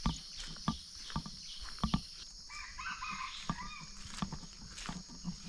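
A red junglefowl rooster crows once, a short call a little over two seconds in. It is heard over irregular crackling steps and a steady high drone.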